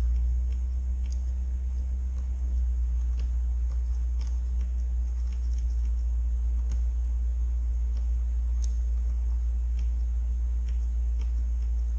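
Steady low rumble of the 2016 Subaru WRX's turbocharged flat-four engine idling, heard from inside the cabin, with a few faint clicks scattered through it.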